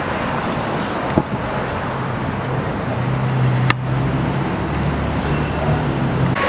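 Street traffic: a steady wash of road noise, with a vehicle's engine droning low from about two seconds in until shortly before the end. Two short sharp clicks stand out, about one and nearly four seconds in.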